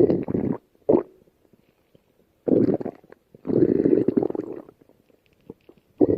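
Stomach growling: five gurgling rumbles in bursts with short silent gaps between them, the longest lasting about a second.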